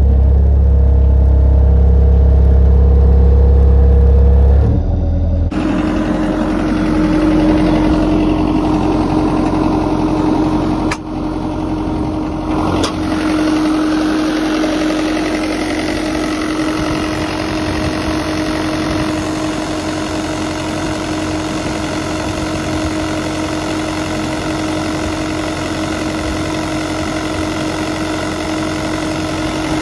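Bobcat 337 mini excavator's diesel engine idling steadily, heard close up at the open engine bay. A louder, deeper steady hum dominates the first five seconds before the sound changes abruptly to the even idle.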